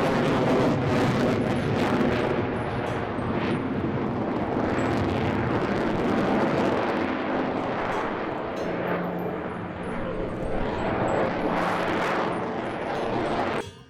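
Jet airplane engine noise: a loud, steady rushing that cuts off suddenly near the end.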